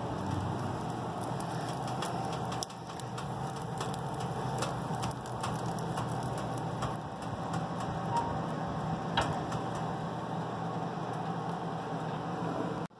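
Wood fire burning in an open wood stove: a steady rushing hiss with scattered crackles and pops from the burning logs.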